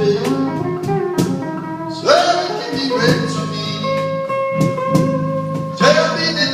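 Live band playing a slow blues instrumental passage, a guitar carrying the melody in long held notes that slide up into pitch, over a steady backing with cymbal strokes.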